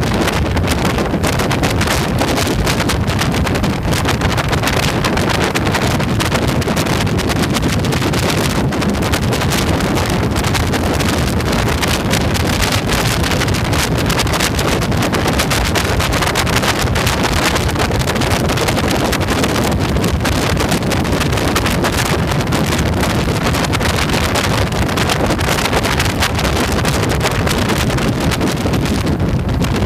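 Steady wind noise buffeting the microphone of a motorcycle cruising at about 90 km/h, with the bike's engine running underneath.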